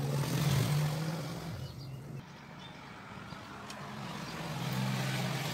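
Engine of a passing motor vehicle with a steady low hum, loudest about half a second in, easing off, then building again near the end before cutting off abruptly.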